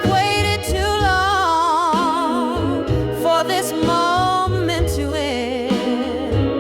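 Slow blues ballad music: a lead melody with wide vibrato over held bass notes.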